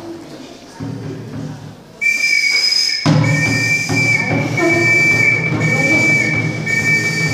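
A shrill whistle blown in long, steady blasts, with drums for a traditional Tsonga dance. The whistle comes in about two seconds in and the drumming joins a second later.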